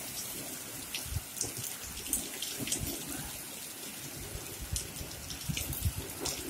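Rain falling steadily on a road and verge, an even hiss with scattered drops ticking on nearby surfaces.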